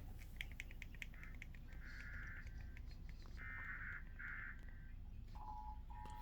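Faint Emergency Alert System data bursts (the SAME header) as short buzzy blasts over a low hum. About five seconds in, the steady two-tone EAS attention signal begins.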